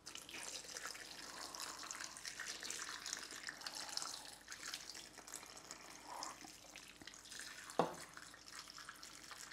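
Beef stock pouring in a steady stream from a measuring jug onto chopped vegetables and sausages in a slow cooker pot: a quiet continuous trickle and splash. A single short knock about eight seconds in.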